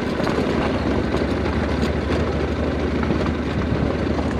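Motorcycle engines running steadily over bumpy dirt, with a dense rattle from the cruiser motorcycle shaking over the rough ground, its parts loose enough that the rattling is breaking pieces off.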